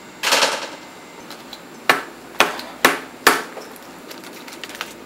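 A short rustle, then four sharp knocks about half a second apart, with fainter ticks between them.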